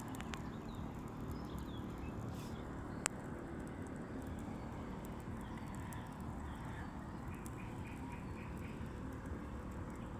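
Outdoor ambience at a forest lake: a steady low rumble with faint bird calls, including a quick run of about seven short notes near the end, and one sharp click about three seconds in.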